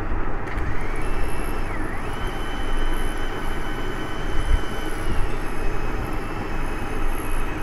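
Two small brushless drone motors spinning on a repaired Racerstar 4-in-1 ESC, with a whine that rises about a second in, holds steady, then drops in pitch and changes again near the end. The motors run normally, so the repaired ESC is working.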